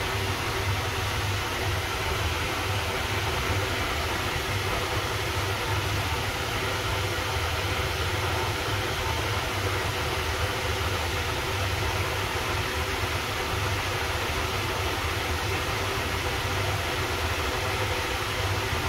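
Finolex wall fan running steadily: an even rush of air from the blades over a low, constant motor hum, with no change in speed.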